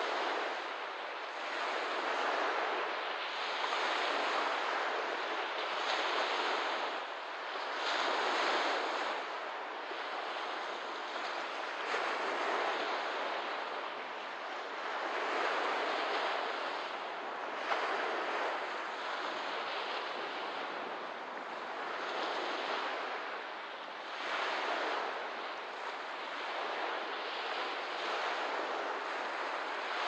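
Small waves washing onto a lakeshore: a steady hiss of water that swells and fades every few seconds.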